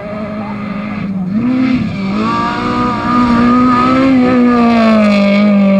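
Honda Civic Type-R rally car's 2.0-litre four-cylinder engine held at high revs, growing louder as the car comes up and passes close by. The revs dip and rise again briefly about a second in.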